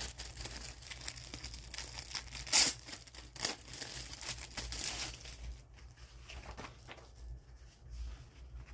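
Rustling and crinkling as a collapsible fabric pop-up storage bin is handled and popped open, with one sharp louder rustle about two and a half seconds in; the handling gets fainter after about five seconds.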